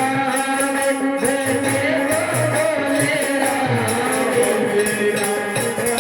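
Hindu devotional kirtan music: a sung melody over a steady rhythm of jingling hand percussion and drum beats.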